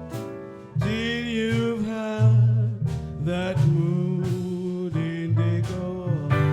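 Jazz band playing an instrumental passage: walking double bass and drums underneath, with a lead melody on top that wavers in pitch and changes note about every half second.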